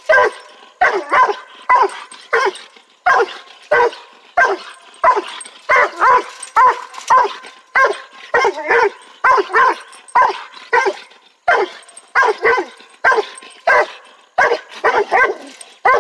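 Hound barking over and over in short, pitched barks, about two a second, while working at a raccoon during coon play.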